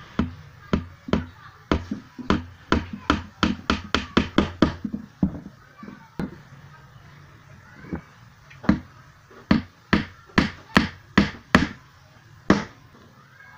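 Small hand hammer striking a thin strip laid on a wooden plank, in quick repeated blows. A run of about a dozen sharp knocks is followed by a pause of a few seconds, then another run of blows.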